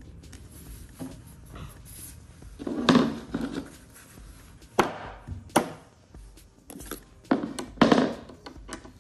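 Handling knocks and clunks of hardware and a screwdriver against the white particleboard panels of an IKEA MICKE flat-pack desk being assembled. There are about five sharp knocks, a pair near the middle and a pair near the end, with quiet between.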